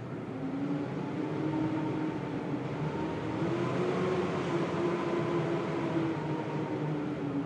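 Blizzard wind howling, a steady rush with wavering whistling tones that swell and then ease off again.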